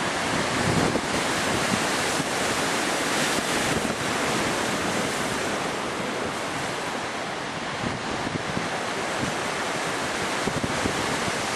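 Wind buffeting the microphone over a steady rush of stormy sea surf breaking against a breakwater's concrete tetrapods.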